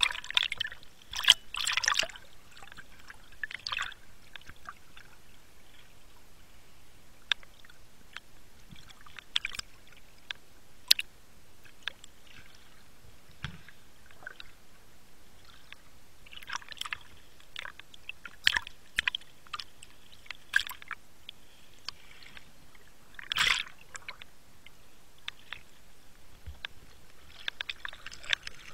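Underwater sound picked up by a diver's camera over a shallow rocky reef: many scattered sharp clicks and crackles, with several short bursts of bubbling and water rush, the loudest near the start and about two-thirds of the way through.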